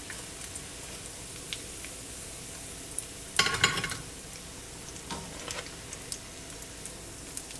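Food deep-frying in hot cooking oil: a steady sizzle with scattered small pops. A short, louder burst of noise comes about three and a half seconds in.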